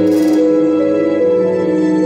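Slow instrumental background music with long held notes.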